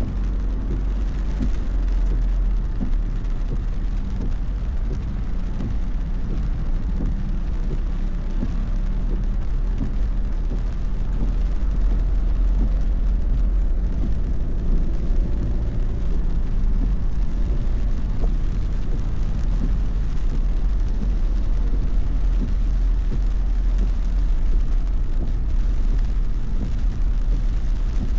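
Car driving, heard from inside the cabin: a steady low rumble of engine and tyre road noise with a faint engine hum, growing a little louder about eleven seconds in.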